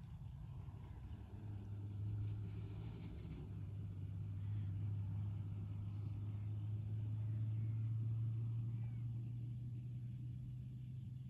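A low, steady engine drone that grows louder over several seconds and then slowly fades, as a motor vehicle passes.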